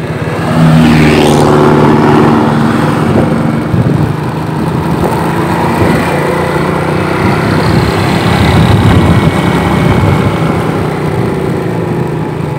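A motor vehicle's engine running while riding along a road, with a loud low rumble of wind and road noise. The engine tone is clearest in the first few seconds and then sinks into the rumble.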